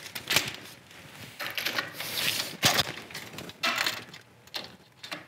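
Steel tape measure being handled and its blade drawn out and stretched across between the snowmobile's skis: scattered sharp clicks and rattles of the metal blade, with a few short scrapes.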